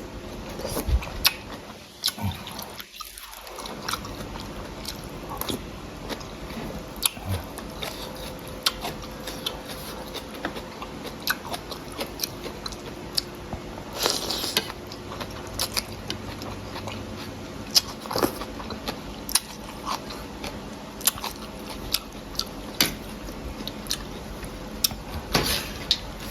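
A person eating noodle soup close to the microphone: chewing and biting, with many short sharp mouth clicks and smacks and two longer, louder noises about 14 seconds in and near the end.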